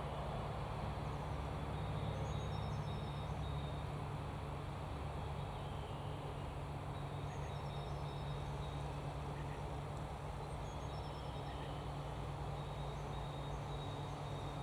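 Freight train of container and tank-container wagons rolling away along the track: a steady rumble of wheels on rail that slowly fades. Faint bird chirps sound above it.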